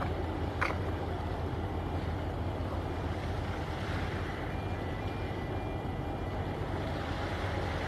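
Steady low engine-like rumble with a constant hum, and a brief click about half a second in.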